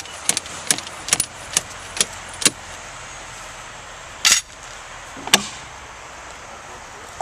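Sharp plastic clicks and taps, two or three a second, as a locking spline is fed into a PVC pipe coupling. About four seconds in comes a longer, louder knock or scrape, then one more click.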